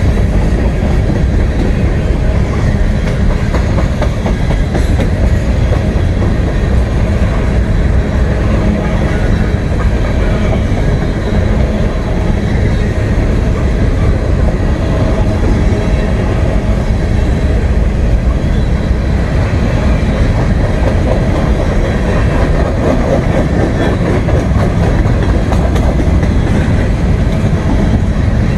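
Norfolk Southern freight train's covered hopper cars rolling past close by: a loud, steady rumble of steel wheels on the rails.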